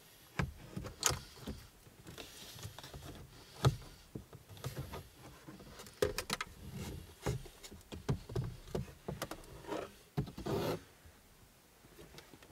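Plastic instrument cluster housing being worked out of the dashboard by hand: irregular clicks and knocks with short bouts of scraping and rubbing as it catches on the surrounding trim.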